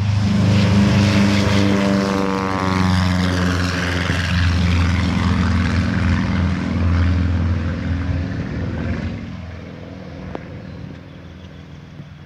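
Cessna 172 taking off: its propeller and piston engine at take-off power drone loudly as it passes close, with a sweeping, flanging change in tone in the first few seconds, then fade steadily as it climbs away.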